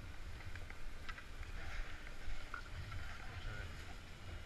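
Low, uneven rumble with scattered light clicks and taps of skis, poles and a snowboard shuffling in a crowded chairlift queue, faint voices of the waiting crowd behind.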